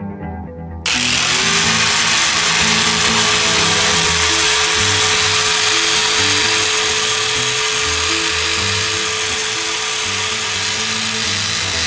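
Angle grinder in a cut-off stand, switched on about a second in and cutting through a metal bar: a loud, steady grinding hiss with a constant motor whine. Background music with a bass line plays underneath.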